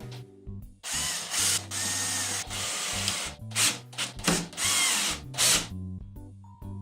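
A power drill running: one long run, then several short bursts whose pitch rises and falls, over soft background guitar music.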